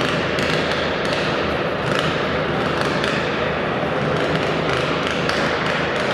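Modified twin-cylinder garden tractor engine running hard at full throttle under load, pulling a weight-transfer sled through the dirt; a loud, steady sound with a rapid crackle.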